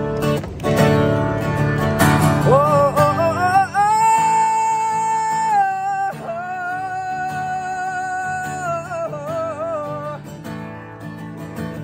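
Steel-string acoustic guitar strummed, with a man singing long held notes over it from about two and a half seconds in until about ten seconds in; the guitar carries on alone after that.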